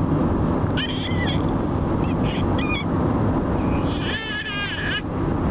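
Infant babbling in high-pitched squealing coos, three short spells, the longest and loudest near the end. Steady road noise inside the moving car's cabin runs underneath.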